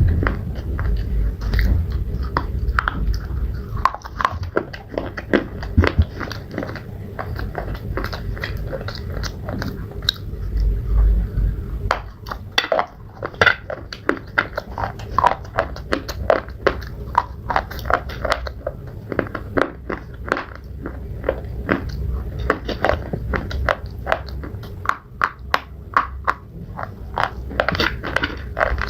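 Pieces of slate being bitten and chewed close to the microphone: a run of sharp, crisp crunches and cracks, coming thickest around the middle and again near the end.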